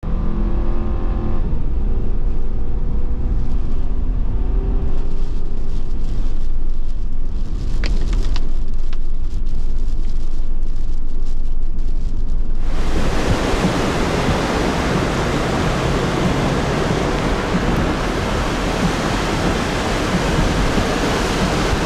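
Road and engine rumble inside a moving car. About thirteen seconds in, this gives way suddenly to a loud, steady rush of strong wind.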